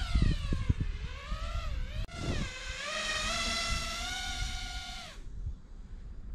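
iFlight XL5 FPV quadcopter's motors whining, the pitch rising and falling with the throttle, then cutting off suddenly about five seconds in, over a low rumble.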